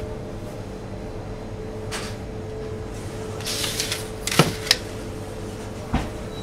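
Wooden pastry tools handled on a granite worktop: a soft rustle, then two sharp knocks in quick succession as the lattice roller is set down, and a dull thump near the end as the rolling pin with its dough is taken up. A steady hum runs underneath.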